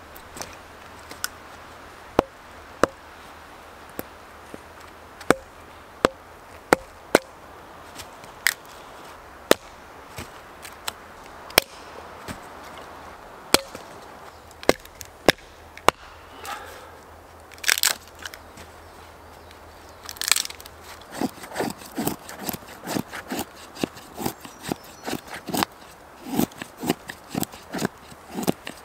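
Hatchet chopping and splitting small logs: a series of sharp single wooden knocks with pauses between. About two-thirds of the way through it gives way to a knife carving feather sticks, quick shaving strokes along the wood in rapid succession.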